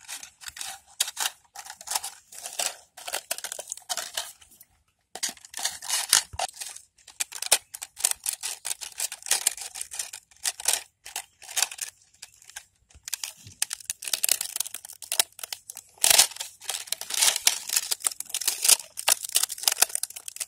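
Scissors snipping through a thin plastic bottle, and the cut plastic crackling as it is bent and handled: a dense run of snips and crinkles, with a short pause about five seconds in.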